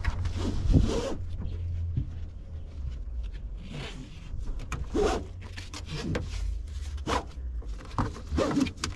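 Nylon webbing of a padded cam-buckle tie-down strap pulled through its buckle in a series of short swishes about a second apart, as the strap is cinched snug.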